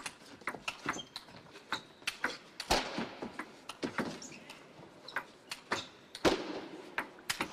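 Table tennis rally: the celluloid ball clicks in quick, uneven succession off the rubber of the bats and off the table, with two harder smacks, about three and a half seconds apart.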